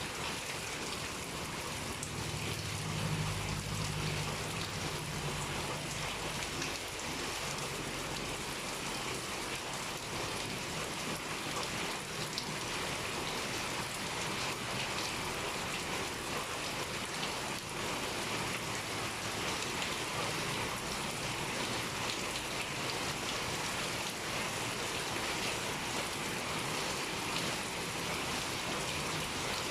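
Heavy rain pouring steadily in a dense, even hiss. A low rumble rises under it about two seconds in and fades a few seconds later.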